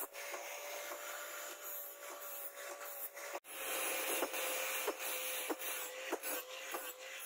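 Angle grinder with a flap disc grinding forged steel: a steady motor whine over the rough hiss of the abrasive on the metal, with scattered ticks. The sound cuts out for an instant about halfway through, then carries on.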